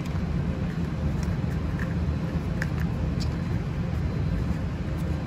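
Steady low rumble of background noise, with a few faint clicks as a red plastic cap is threaded by hand onto a stainless steel gas-sensor housing.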